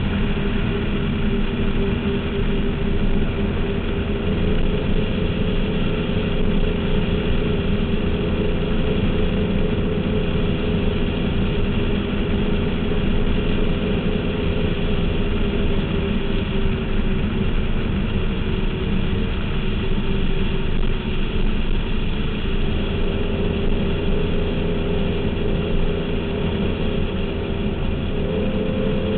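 Performance powerboat engine running steadily at speed, a constant drone over the rush of wind and water. The engine pitch shifts slightly a couple of times in the last third.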